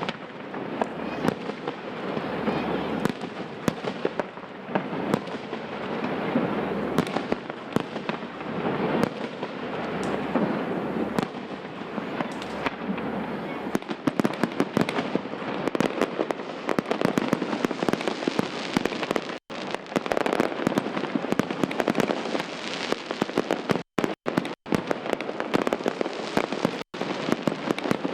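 Aerial fireworks display: a dense, continuous barrage of bangs and crackling.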